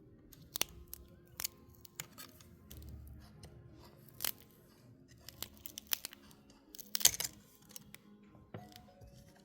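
Tweezers working the Wi-Fi antenna of an M1 MacBook Air loose: a string of sharp clicks and short tearing crackles as the antenna is lifted from its adhesive, the loudest about seven seconds in.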